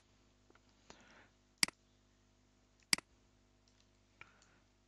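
Three sharp computer mouse clicks about a second and a half apart, with a few fainter ticks between, over a faint steady room hum.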